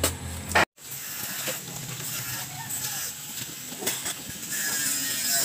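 A shovel blade chopping into wet earth, two sharp strikes in the first second. Then a steady hiss with a few faint knocks as concrete hollow blocks are handled in muddy water.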